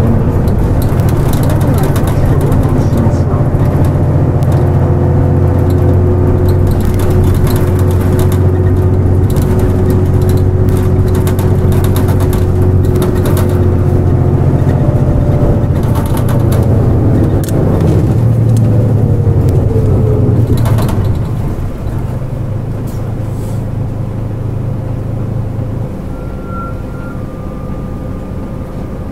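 Hankyu Bus KL-JP252NAN (Nissan Diesel JP-series city bus) under way: steady diesel engine hum with a drivetrain whine that rises and falls in pitch. About two-thirds of the way through the engine note drops and the bus runs noticeably quieter.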